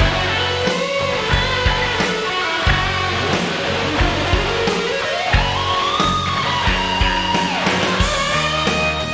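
Rock music with guitar over a steady drum beat; a guitar line slides upward about four to six seconds in.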